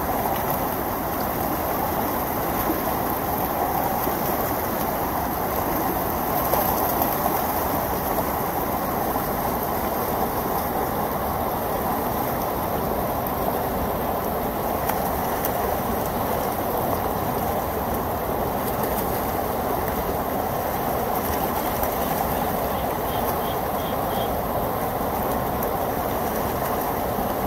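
Steady rushing of water pouring from a fish ladder's outlet over a concrete wall into the sea, an even noise without breaks.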